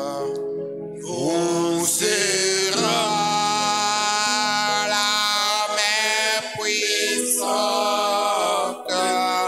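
Voices singing a slow hymn with long, drawn-out held notes and no drums.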